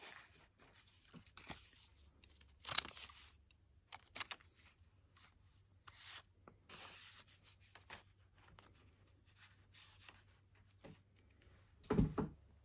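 Pinking shears snipping through a thin mesh strip in short, separate cuts, with light paper rustling between them. A dull thump comes near the end.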